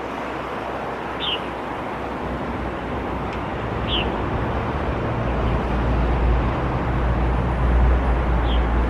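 Road traffic beside a main road: a motor vehicle's engine and tyre rumble grows louder over the second half as it approaches. Three short, high bird chirps sound over it.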